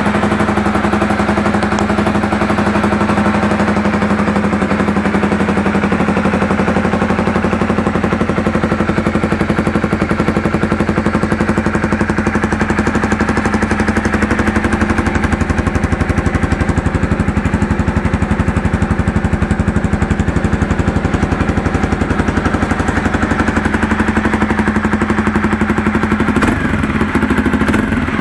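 Honda CBR300R single-cylinder four-stroke engine, swapped into a CRF250 Rally, idling steadily through a GPR aftermarket silencer on a test run.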